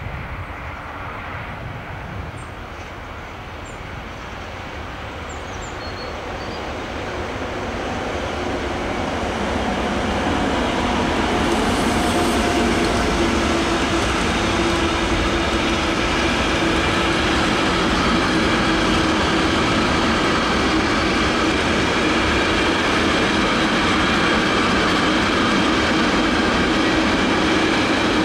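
Container freight train approaching and passing close by: the noise builds over the first ten seconds or so as the train draws level, then holds steady as the loaded container wagons roll past, their wheels running on the rails with a steady tone through the noise.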